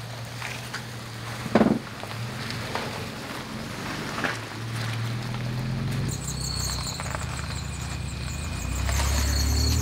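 Toyota FJ Cruiser 4.0-litre V6 engines running at low revs as the trucks crawl over rock ledges, the engine note swelling twice as they climb. A single sharp knock about a second and a half in is the loudest sound.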